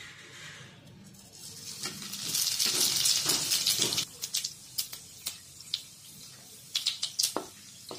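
Whole cumin seeds, dried red chillies, bay leaves and black peppercorns sizzling as they hit hot oil in a kadai: a hiss that swells about two seconds in, is loudest for about two seconds, then dies down. After it, a run of sharp clicks and taps as the spices are stirred with a wooden spatula in the pan.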